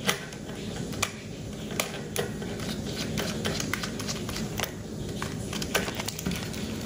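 Hands handling wires on a 3D printer control board: scattered small clicks and light rustling as the heated-bed power wires are worked loose from the board's terminals, with a few sharper clicks about a second in and again near two and five seconds.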